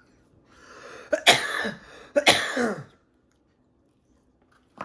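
A man coughing hard twice, about a second apart, after a rasping breath drawn in before the first cough, from the burn of Carolina Reaper hot sauce. A short tick near the end.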